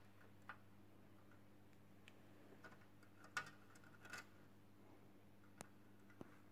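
Near silence with a few faint plastic clicks and scrapes as a bulb holder is handled and pushed into a digital instrument cluster's circuit board, over a low steady hum.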